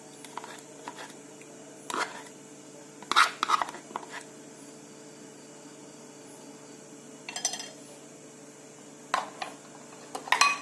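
Spoon and dishware clinking and knocking against a container, several separate sharp knocks with the loudest about three seconds in, and a quick rattle of small ticks about seven seconds in, as honey is spooned in.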